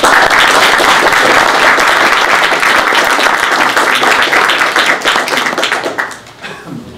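Audience applauding: dense clapping that dies away about six seconds in.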